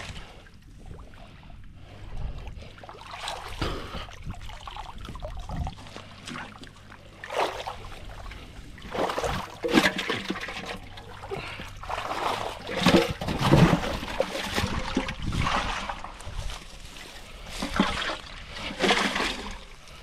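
Shallow muddy water splashing and sloshing in irregular bursts as a person wades and moves through it.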